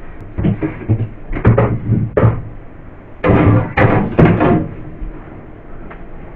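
Knocks and bumps of things being handled in and around a fridge, followed about three seconds in by a louder, denser stretch of clatter.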